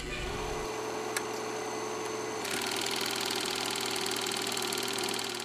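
Electronic buzz and static of a video-glitch transition effect. A steady hum comes first, with a single click just after a second in. From about two and a half seconds in it turns into a harsher, rapidly pulsing buzz that fades at the end.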